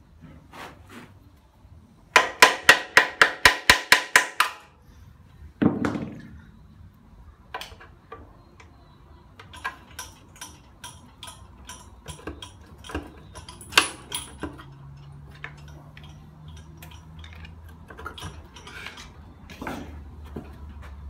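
A hammer striking metal about ten times in quick succession, roughly four blows a second, each blow ringing. Then a single heavier thud and scattered light metallic taps and clicks.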